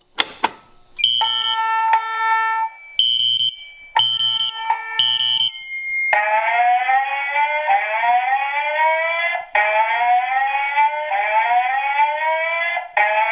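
Fire alarm going off after a sharp click. It first gives a few short, steady electronic tone pulses for about five seconds, then switches to a repeating slow rising whoop, each sweep lasting about three and a half seconds.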